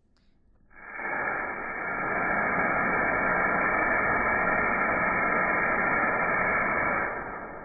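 Aerosol snow spray can hissing in one long continuous spray, starting about a second in and fading near the end.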